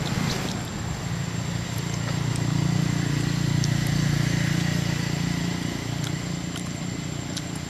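A motor vehicle's engine running with a steady low hum that swells louder through the middle and then eases off.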